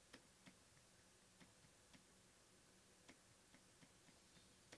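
Near silence broken by faint, irregular clicks and taps of a stylus pen on a graphics tablet during handwriting, about seven in under five seconds.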